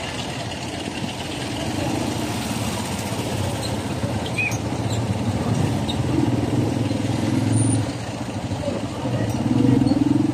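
Street traffic: a heavy container truck's engine running close by, with motorcycles passing. The engine rumble swells twice, once past the middle and again near the end.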